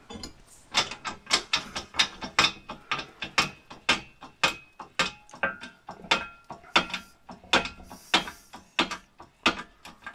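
Hydraulic shop press being pumped by its hand lever: a quick, uneven run of sharp metallic clicks and clacks, about two to three a second, some with a short ring, as a new rubber suspension bushing is pressed into the arm.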